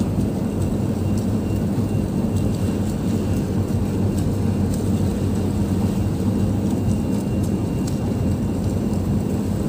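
Steady low drone of a fishing boat's engine underway, mixed with wind and the rush of the sea.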